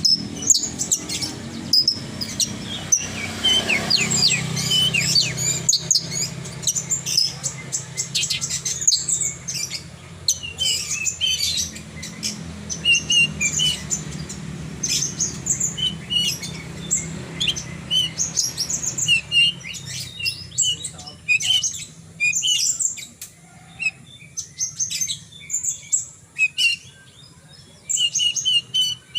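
Javan bush lark (branjangan) singing vigorously: a long run of rapid, varied chirps, trills and whistled notes with few pauses. A low steady hum sits underneath for the first two-thirds.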